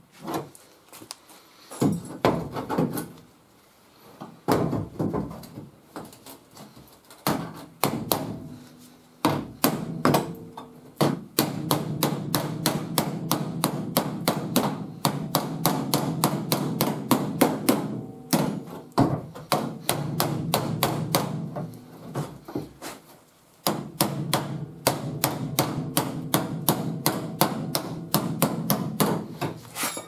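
Steel body hammer striking a welded-in sheet-metal patch panel against a dolly, shaping the patch's lip at the wheel arch. A few scattered strikes in the first seconds, then steady rapid tapping at about four blows a second, each with a short metallic ring.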